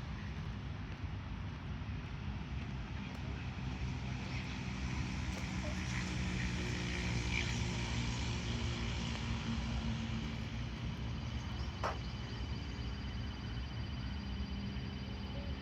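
Road traffic: a steady low rumble, with a vehicle passing that is loudest about halfway through. A single sharp click comes near the end.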